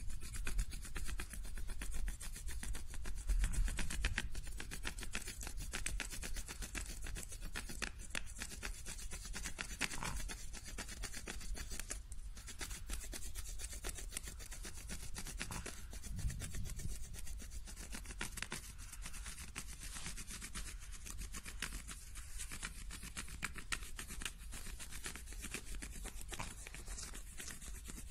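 Wax crayon rubbed in quick back-and-forth strokes over paper laid on a textured plastic rubbing plate, a dense scratchy rubbing.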